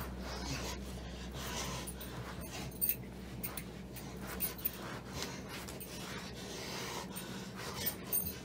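A person breathing hard and panting, with animal-like snorts, over rustling and a few sharp clicks.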